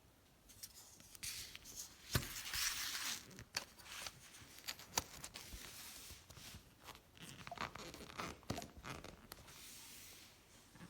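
Handling noises: rustling, scraping and tearing sounds broken by scattered clicks and knocks, the sharpest knock about two seconds in.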